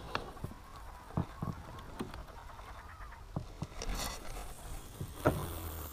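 Irregular knocks and clicks with rustling cloth as fishing gear is handled in an inflatable boat while a fish is reeled in. Clothing rubs right against the microphone, and the loudest knock comes near the end.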